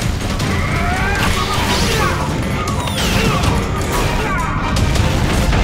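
Loud cartoon battle sound effects: a robot's energy blast, with crashing impacts and sweeping sci-fi tones that rise and fall, over action music.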